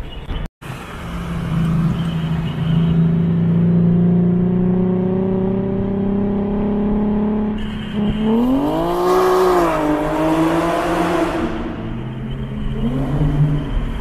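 Infiniti G37 sedan's 3.7-litre V6 running through ISR test pipes (catalytic converter delete) and a custom single-exit exhaust, heard from a car alongside. A steady exhaust drone climbs slowly in pitch under gentle acceleration. About eight seconds in it gets louder, with a rise, dip and rise in pitch as the car pulls alongside, then eases off.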